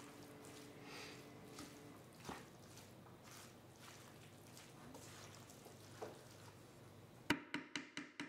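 Wooden spoon stirring and folding spaghetti squash strands, chickpeas and spinach in a stainless steel skillet: faint soft squishing with small scrapes and clicks, ending with a quick run of about six sharp taps.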